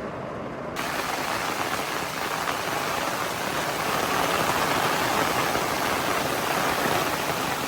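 Heavy rain pouring down in a steady hiss, muffled at first and then suddenly fuller and brighter about a second in.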